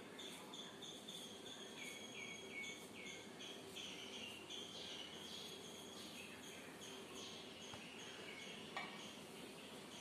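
Faint high chirping, several short notes a second, over a faint steady hum.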